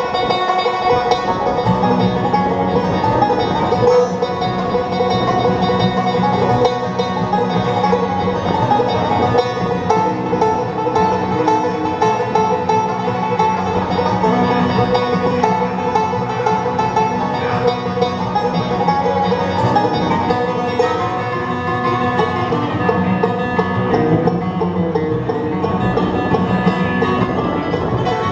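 Live bluegrass band playing an instrumental passage, with banjo and guitar picking over a steady beat.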